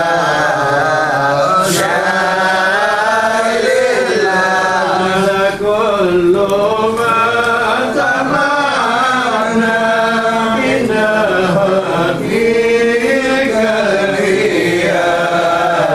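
A group of men chanting Arabic devotional verses together, a maulid recitation, with a melody that rises and falls continuously.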